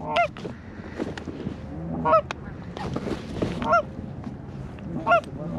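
Canada goose honks: four short, sharply rising calls about a second and a half apart, with a faint rustle in between.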